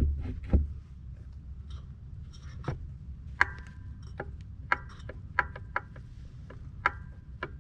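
Irregular sharp metallic clicks and clinks, about a dozen, several with a brief ring, as metal parts and tools are handled; most come in the second half.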